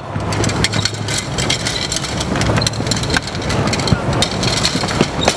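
Badminton rackets clattering and knocking together as they are dropped into a wicker basket, many light knocks and rattles over a general crowd din.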